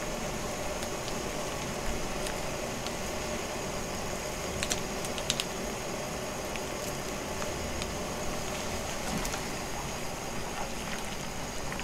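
Steady low hiss of a pot of soup broth heating on a tabletop stove, with a few soft clicks about five seconds in as a sauce packet is squeezed over it.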